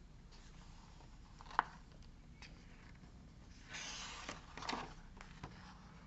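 Paper page of a hardcover picture book being turned: a soft rustle about four seconds in, with a faint tap on the book about a second and a half in.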